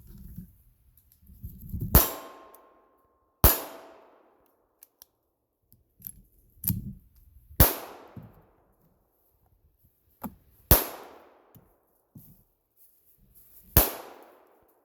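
Glock 17 Gen5 9mm pistol fired in slow single shots, five loud reports a few seconds apart, each followed by a fading echo, with fainter knocks in between.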